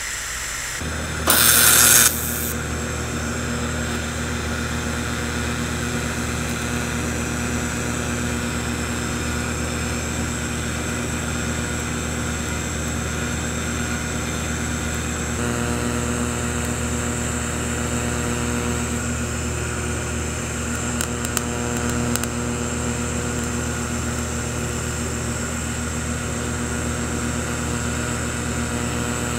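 TIG welder arc buzzing steadily while a worn steel shaft is built up with silicon bronze brazing. A short, louder hiss comes about a second in as the arc starts.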